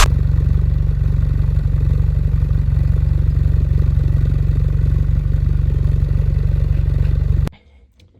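Ford Fiesta ST150's 2.0-litre four-cylinder engine running steadily, cutting off abruptly about a second before the end. It still has a slight misfire, which the owner says is much improved but not cured.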